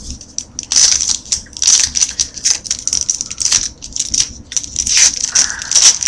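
Foil wrapper of a 2013 Topps Archives baseball card pack crinkling and tearing in irregular crackles as it is handled and opened.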